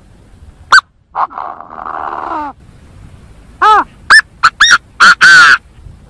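A gà gô, a partridge- or grouse-type game bird, giving loud, harsh calls. A single sharp note comes first, then one drawn-out rasping call, then a quick run of short notes.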